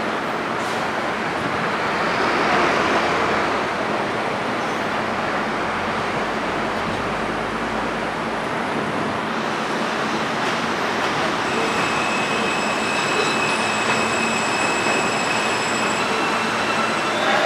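New York City subway trains at an elevated station: steady, loud train noise, with a high steady squeal that joins about two-thirds of the way through.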